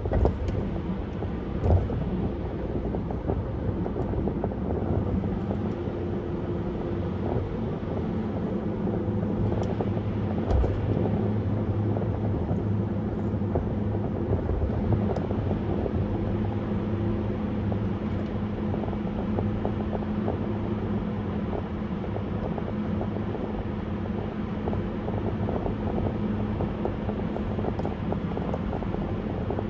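Car driving at speed on a parkway: steady road and engine rumble with wind noise, with a couple of light knocks from bumps in the road.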